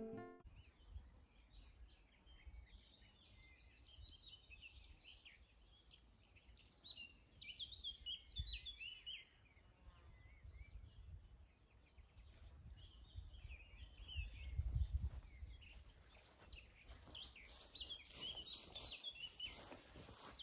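Faint birdsong: several birds chirping and trilling throughout, with a few low rumbles now and then.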